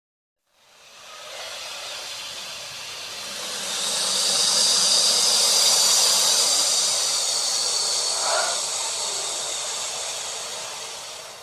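An alligator hissing: one long hiss that starts after a moment of silence, swells over a few seconds and slowly fades, the warning an alligator gives when threatened.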